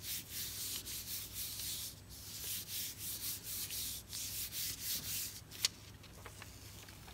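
Palms rubbing and smoothing the back of a sheet of paper laid over a painted gel printing plate, burnishing it so the paint transfers: repeated swishing strokes of hand on paper. The strokes stop about five and a half seconds in with one sharp tick, leaving only faint small ticks of the paper being handled.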